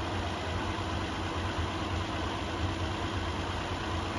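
1969 Opel Commodore A's straight-six engine idling steadily with the bonnet open, running again now that fuel is reaching the carburettor.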